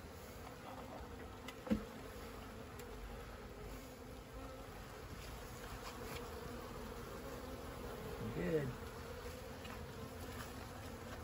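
Honeybees buzzing steadily around frames lifted from an opened hive, with a louder buzz that swells and falls in pitch about eight and a half seconds in. A single sharp knock comes a little under two seconds in.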